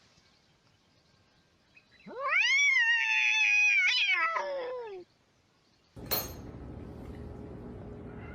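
A domestic cat giving one long drawn-out meow, about three seconds, rising at the start, holding, then falling away.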